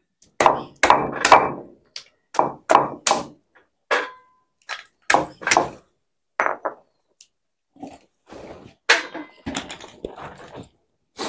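A knife chopping pieces of coconut on a wooden chopping block: a string of irregular sharp knocks, several in quick pairs, with short pauses between.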